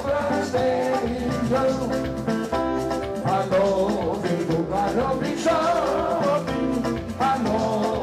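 Music: a song with a singing voice and guitar.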